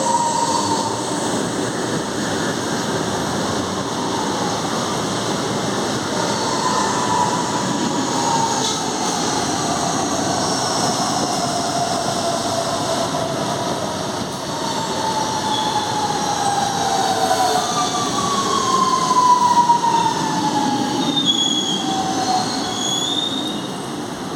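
CPTM Series 2070 Alstom electric multiple unit running, with its traction motors making a growling whine that glides down in pitch several times. Short high-pitched squeals come near the end.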